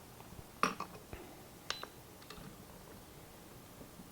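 A few faint, light clicks and handling knocks from a Glock pistol and trigger pull gauge being reset and repositioned between trigger-weight pulls, spread over the first couple of seconds.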